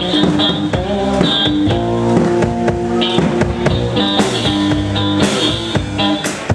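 Double-neck Lowebow cigar box guitar playing an instrumental blues passage, with a bass drum beat and cymbal strikes from a one-man-band kit.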